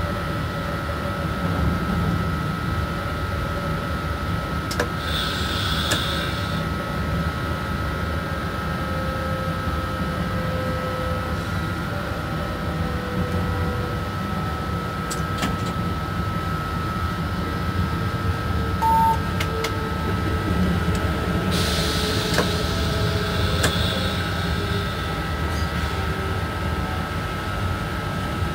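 An SNCF BB 27300 electric locomotive running, heard from inside its cab: a steady rumble with a constant whine and a fainter motor tone that slowly shifts in pitch. There are two brief spells of hiss, about 5 s and 22 s in, and a single short beep from the cab about 19 s in.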